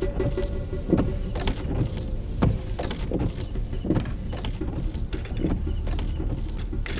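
Film soundtrack: a steady low rumble with irregular sharp knocks and clicks scattered through it.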